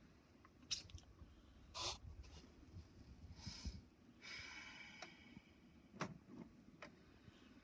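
Near silence: room tone with a few faint clicks and a short soft hiss near the middle.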